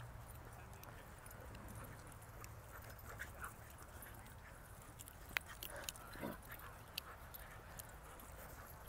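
Several dogs playing and running on grass, heard faintly, with a few sharp clicks between about five and seven seconds in.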